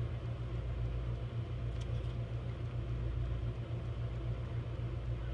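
A steady low machine hum with a slight pulsing, like a motor or engine running.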